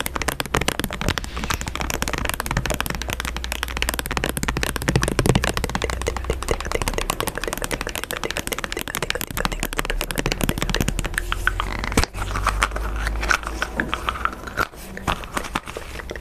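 Pink slime being stretched, squeezed and pulled close to a microphone, making a dense stream of small crackles and pops.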